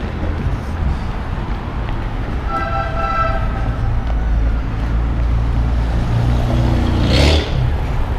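Downtown street traffic with a strong steady low rumble. A brief steady pitched tone, like a horn, sounds for about a second some two and a half seconds in. A short rush of noise, like a vehicle going by, comes near the end.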